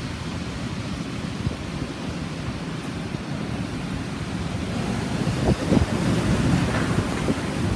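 Typhoon-force wind with heavy rain, gusting and buffeting the microphone. It grows louder about halfway through, with a few heavy low gusts.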